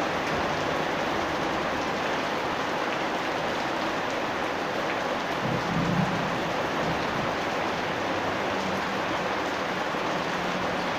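Steady rain falling, a dense even hiss of drops hitting the ground and surfaces, with a brief low rumble about halfway through.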